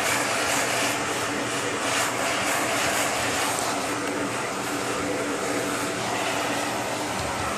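Vacuum cleaner running steadily: a constant motor hum and rushing airflow.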